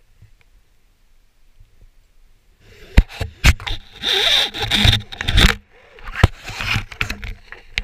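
Close handling noise of paraglider gear: gloves, clothing and brake lines rustling and scraping right at the microphone, with several sharp clicks. It starts after a quiet first couple of seconds. The paramotor engine is not running.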